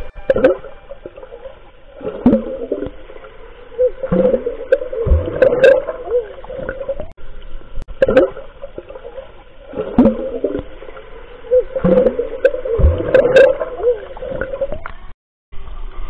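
Muffled underwater gurgling and bubbling picked up by a camera submerged in a swimming pool. It swells about every two seconds with falling whooshes, and cuts out briefly near the end.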